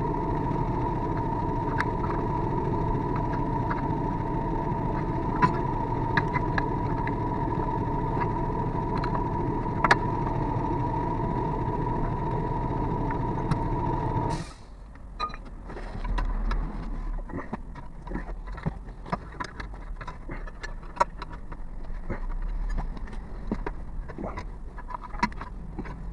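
Hyundai Grandeur HG, a steady vehicle drone with a thin whining tone through it. It cuts off suddenly a little over halfway through, leaving a quieter background of scattered ticks and rattles.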